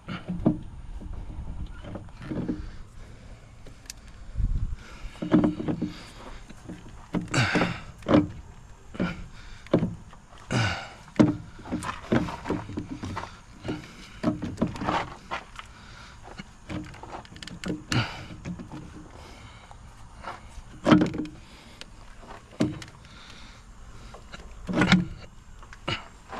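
Irregular metal knocks, clunks and scrapes as a truck's air compressor is wiggled and worked into its mount on the engine, a tight fit. Some of the knocks ring briefly.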